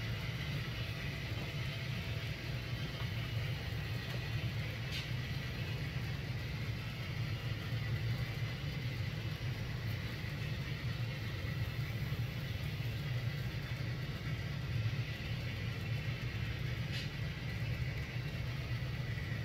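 Model freight train, pulled by a Texas and Pacific GP9 model locomotive, running along layout track: a steady low rumble of the cars' wheels on the rails and the locomotive's motor, with a couple of faint clicks.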